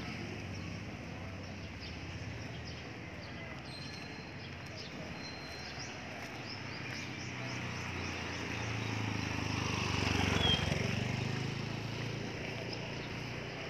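Street ambience with small birds chirping, and a motor vehicle passing: its engine hum builds to a peak about ten seconds in, then fades.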